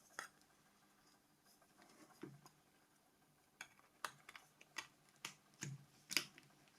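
Small, sharp clicks and taps, about a dozen scattered through and bunched toward the end, as the battery cover is fitted onto a Nokia C5 mobile phone and the phone is handled.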